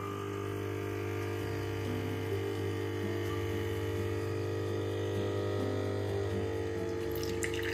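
Lelit Mara X espresso machine's vibratory pump humming steadily as it pushes water through the coffee puck in a bottomless portafilter. A light hiss comes in near the end as the first coffee starts to drip from the basket.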